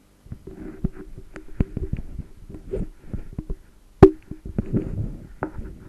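Computer keyboard typing: quick, irregular key clicks, with one much louder knock about four seconds in, over a faint steady electrical hum.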